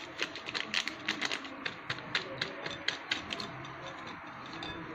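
Light metallic clicks and taps of a metal mesh sieve against the rim of a glass mixing bowl as it is set and worked over the batter, about four or five a second, dying away after about three and a half seconds.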